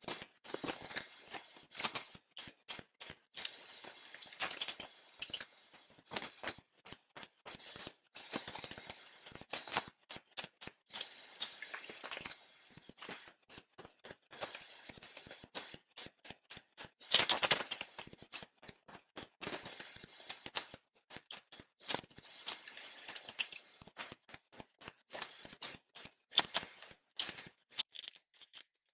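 Electric welding arc crackling as 1/8 inch steel plate caps are welded onto hollow structural steel tube, in short runs that start and stop every second or so.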